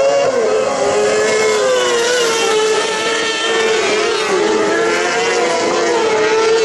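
Several kartcross buggies' motorcycle engines revving hard together as the pack races through a dirt corner. The engine notes overlap and waver up and down in pitch, one dipping briefly about four seconds in.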